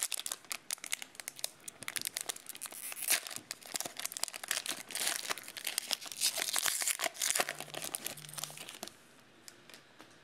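Plastic wrapper of a 2020 Donruss football card pack being torn open and crinkled in the hands: a dense run of crinkles that stops about nine seconds in.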